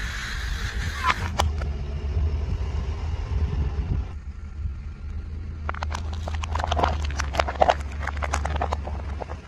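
Car engine's low rumble as a tyre rolls slowly onto objects on asphalt: two sharp snaps about a second in, then a dense run of crackling and snapping about halfway through as thin white plastic bowls break under the tyre.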